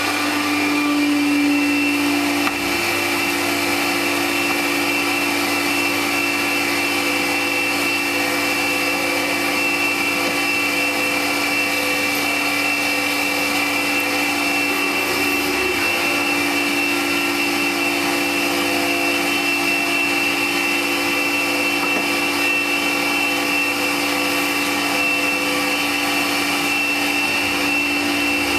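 A motor-driven machine starts up suddenly and runs steadily, an even hum with a higher whine over it.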